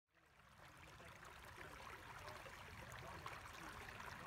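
Faint running water of a stream fading in from silence, then flowing steadily.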